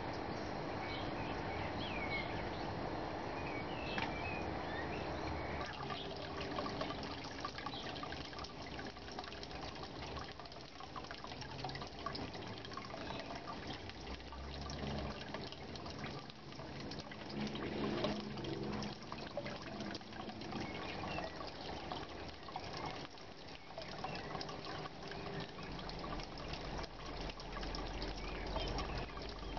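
Water trickling and splashing steadily in an aquaponics fish tank, with a few bird chirps in the first few seconds.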